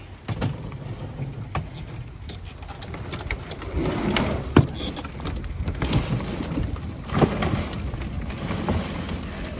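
Low, steady rumble of a vehicle on the move, with scattered knocks and rattles that grow busier from about halfway through.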